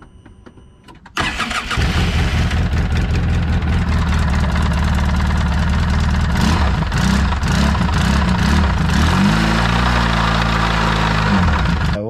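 Polaris RZR 800 twin-cylinder engine started with its drive clutch removed, catching about a second in and running until it is shut off just before the end. The engine noise it runs with is the one that remains with the clutch off, which turns out to be rod knock from bad rod bearings.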